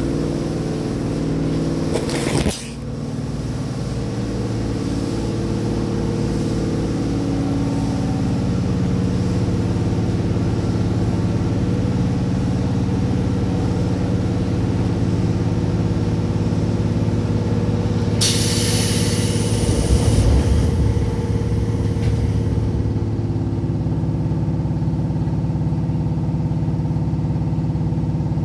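Seibu 2000 series electric train running, heard loud from inside the car directly above its HB-2000 underfloor unit: a steady mechanical running hum with several low tones. There is a brief noise burst about two seconds in, and an airy hiss that lasts about two seconds about two-thirds of the way through.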